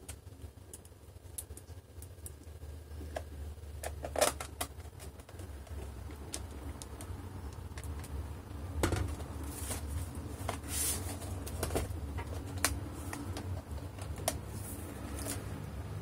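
Screws being driven back into the plastic underside of an Acer TravelMate 4230 laptop with a small screwdriver: scattered light clicks and taps, with a few louder knocks of handling about four seconds in and again around nine to eleven seconds in.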